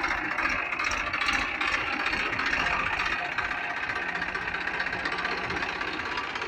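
Music playing over a Massey Ferguson 245 DI tractor's three-cylinder diesel engine running as it drives past pulling a trailer loaded with sacks.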